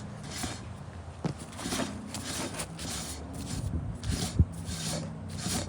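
Rhythmic metal-on-metal scraping, about two strokes a second, as a rusted, PB Blaster–soaked tie rod end is worked around on its threads. One sharper knock comes a little past halfway.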